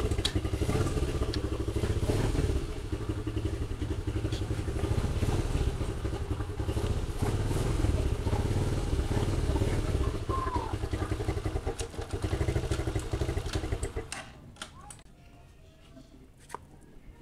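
Skygo King 150's 150 cc single-cylinder engine running with a steady, even pulse, then shutting off about fourteen seconds in; a few light clicks follow in the quiet.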